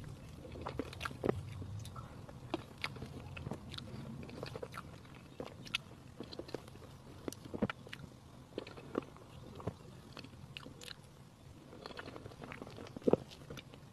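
Close-miked mouth sounds of a person eating soft cream cake by the spoonful: wet chewing with many small scattered clicks, and one sharper click about a second before the end.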